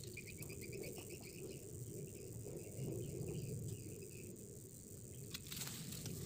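Insect chirping in a quick, even series of short high pulses that dies away about four seconds in, over a steady low rumble. A couple of faint clicks come near the end.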